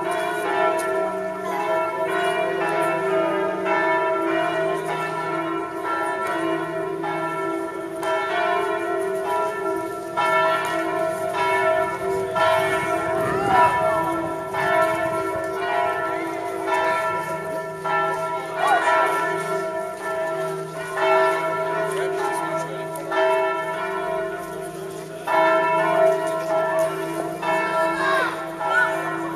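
Church bells pealing continuously, their strokes coming about once a second.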